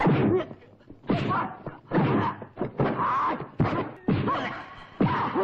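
Kung fu film fight sound effects: about seven punch and kick impact hits in quick succession, each paired with a short shout or grunt from a fighter.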